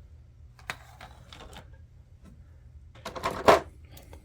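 Light plastic clicks and taps from handling a 1/12-scale action figure, with a sharper cluster of clicks about three and a half seconds in, over a low steady hum.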